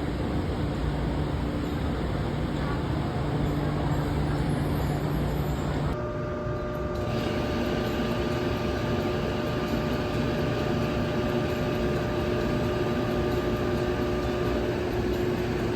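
Steady rumble of a vehicle running, which changes abruptly about six seconds in to a similar drone with a faint steady whine over it.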